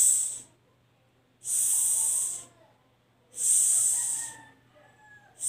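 A woman's voice making the drawn-out hissing "sss" sound of the letter S, repeated about every two seconds, each hiss lasting about a second.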